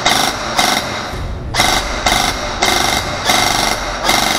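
Airsoft electric rifle firing a string of short full-auto bursts, about seven in a row, each a rapid rattle of the gearbox cycling over the motor's whine, with a pause of about half a second just after the first second.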